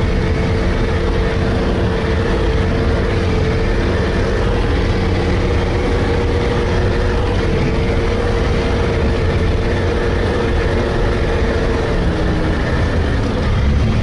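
All-terrain vehicle's engine running steadily under way: a loud, even low drone with a steady whine above it that drops a little in pitch near the end.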